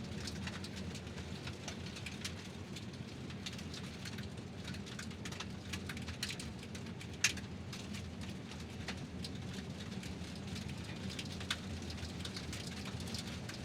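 Car tyres rolling over gravel: a steady low rumble with stones crunching and popping in scattered clicks, and one sharper pop about seven seconds in.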